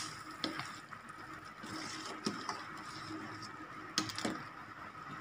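A metal ladle stirring soup in a large stainless steel pot, knocking against the pot a few times with light clinks over a faint steady hum.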